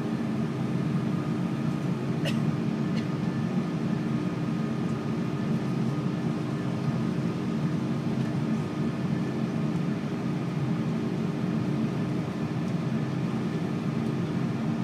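Steady cabin noise inside a taxiing Airbus A330-300: a low, even drone of the engines and air-conditioning with a few constant tones. A short click about two seconds in.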